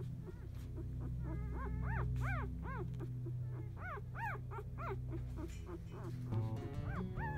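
Four-day-old Labrador Retriever puppies squeaking and whimpering: a string of short, high squeaks that each rise and fall in pitch, coming thickest in the middle. Soft music comes in near the end.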